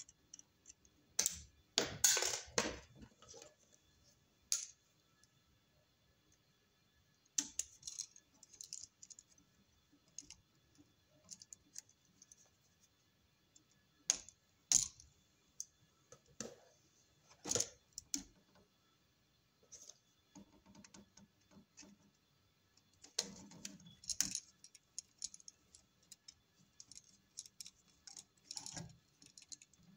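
Irregular small clicks and metal clinks of hand tools and wires being worked at a light switch while its bare copper ground pigtail is fastened on.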